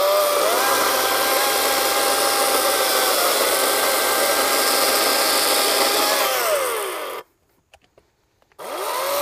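Atlas 40V brushless battery chainsaw cutting through a small log, its motor whine holding a steady pitch under load. About seven seconds in the whine falls in pitch and stops as the trigger is released, and near the end it spins up again.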